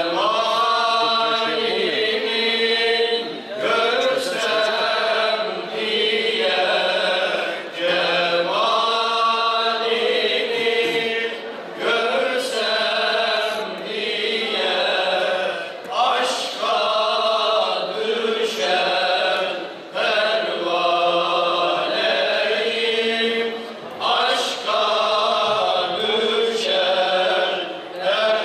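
A group of men singing a Turkish ilahi, an Islamic hymn, together in long held phrases. Each phrase lasts about four seconds and ends with a short break for breath.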